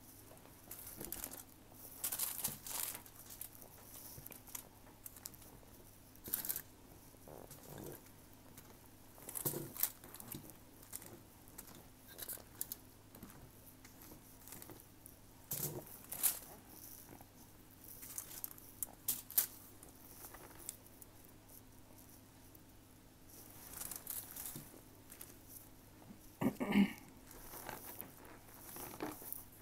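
Dry cornstarch crunching and crackling in irregular short bursts as it is mashed and crumbled with a fork and fingers, along with chewing of cornstarch. A brief hum near the end.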